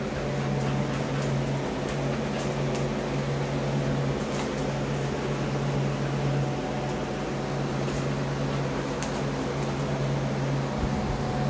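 Steady low mechanical hum, like that of a household appliance such as a fan or air conditioner, with a few faint ticks scattered through it.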